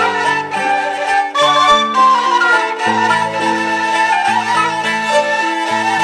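Instrumental passage of a Turkish folk song: a bowed string melody over sustained accompanying notes, with no singing.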